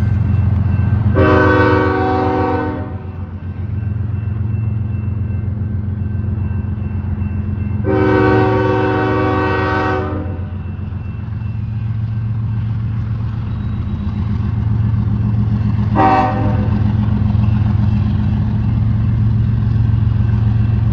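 Train horn sounding two long blasts and then a short one, a multi-note chord, over the steady low rumble of the train, which grows louder near the end.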